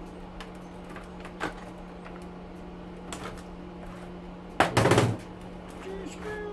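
Clicks and knocks of parts being handled as an air cleaner is taken apart, with one loud rattling clatter about four and a half seconds in, over a steady low hum.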